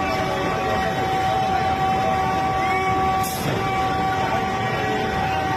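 Vande Bharat Express electric trainset running at high speed, heard from inside the driver's cab: a steady rumble and rush with several constant whining tones through it. A short rising chirp comes about three seconds in.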